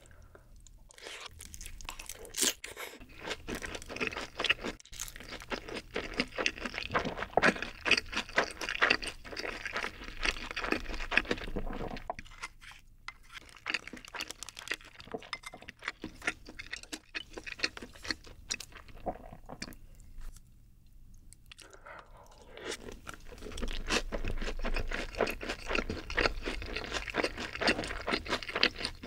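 Close-miked chewing of sauced fried chicken and rice, crunchy and wet. Chewing is loud and dense in the first part and again near the end, with a quieter stretch in the middle while a spoon scoops rice from the bowl.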